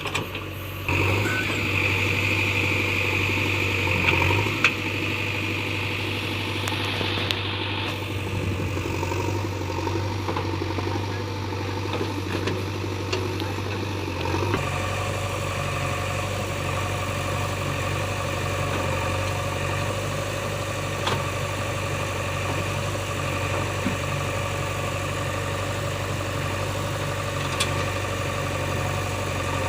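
Heavy diesel engine running steadily. A high whine rises over it from about a second in until about four and a half seconds in, and the engine's tone shifts about halfway through.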